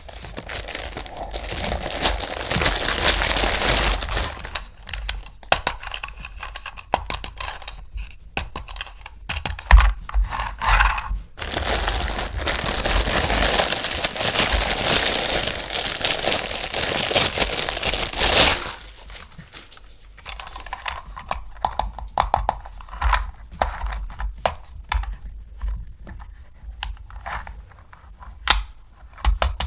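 Toy packaging being crinkled and torn open during unboxing, in long rustling stretches. After that comes a run of small clicks and taps as the parts are handled.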